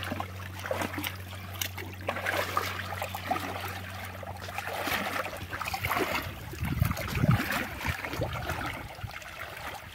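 Shallow pond water splashing and trickling in irregular bursts as people wade and grope in it for fish, with a low steady hum underneath that fades out about six seconds in.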